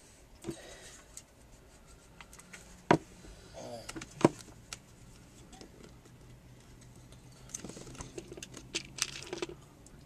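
Light clicks and taps of fingers handling small pearl beads on a wooden birdhouse, with two sharper taps about three and four seconds in and a run of quick light clicks near the end.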